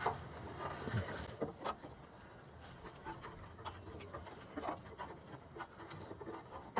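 Faint scattered clicks and rubbing of hands working a fuel line fitting onto a canister fuel filter, threading it by hand.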